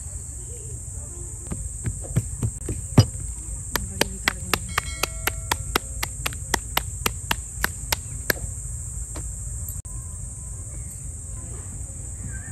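Tandoori roti dough slapped from palm to palm to stretch it: a few irregular, heavier slaps, then a regular run of sharp slaps about four a second that stops about two-thirds of the way through. A steady high-pitched insect drone runs underneath.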